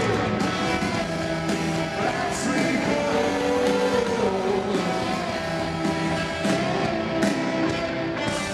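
Rock band playing live: drum kit, electric guitars and singing, heard from the crowd in a large arena.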